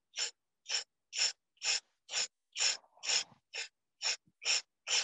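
Multi-blade scallion shredder drawn down green onion stalks against a wooden cutting board, cutting them into fine threads: short rasping scrapes, about two strokes a second.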